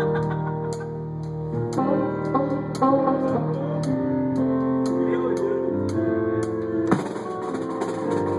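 A live band playing at a sound check: drum kit with regular cymbal strokes over bass and held chords.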